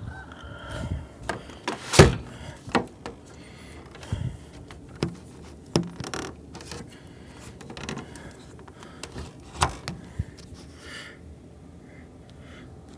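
An irregular run of sharp clicks, knocks and rattles, about a dozen over ten seconds, the loudest about two seconds in, then quiet toward the end.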